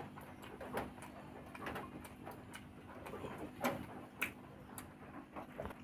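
A person eating: chewing and mouth sounds, with about five short sharp clicks or smacks over a faint steady hum.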